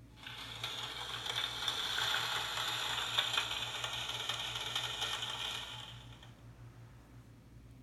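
Recorded night-time sound effect played through the small speaker of a children's noisy sound book: a dense, raspy clicking that starts suddenly and fades out about six seconds in.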